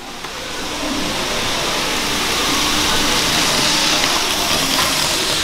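N gauge model train running along the track, a steady rushing and rolling of small wheels on metal rails. It swells over the first second and then holds loud and even.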